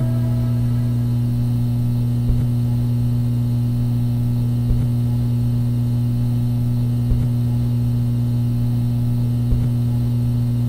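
Steady loud low hum, with a soft tick about every two and a half seconds.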